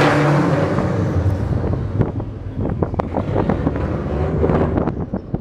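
Subaru Impreza WRX STI's turbocharged flat-four exhaust echoing in a concrete tunnel as the car pulls away, fading over the first couple of seconds. Wind buffets the microphone, with rough crackling through the rest.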